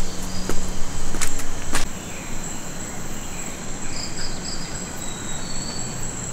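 Rainforest insects keeping up a steady high-pitched drone, with a few short chirps about four to five seconds in. A handful of sharp clicks in the first two seconds are louder than the drone.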